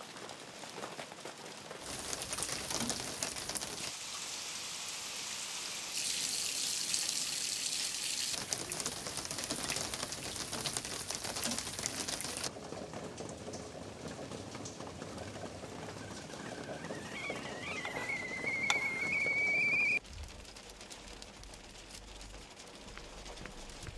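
Kitchen cooking sounds: a steady sizzle of food frying on a stove, changing at each cut. Then a stovetop kettle whistle rises in pitch for about four seconds and cuts off abruptly.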